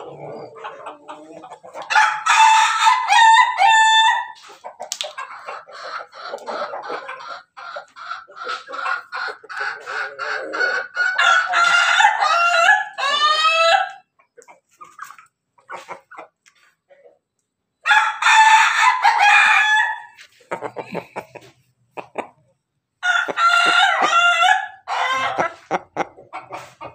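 Ayam ketawa (Indonesian laughing chicken) roosters crowing several times. Each crow is a long run of rapid, stuttering syllables, and one stretches on for several seconds. Short clucks come between the crows.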